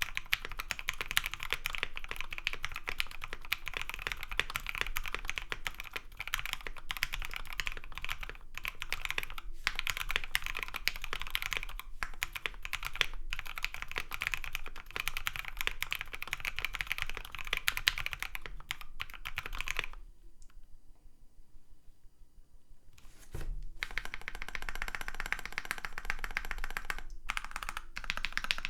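Continuous fast typing on a Project Keyboard Sirius mechanical keyboard, with a POM case and plate, Krytox-lubed Tangerine 62g linear switches and MT3 keycaps: a dense stream of keystrokes. The typing stops for about three seconds around two-thirds of the way through, then starts again.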